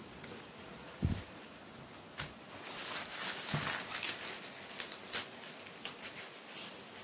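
Clear plastic parts bag and bubble-wrap packaging crinkling and rustling as they are handled and cleared away, with a dull thump about a second in and sharp crackles and clicks over the next few seconds.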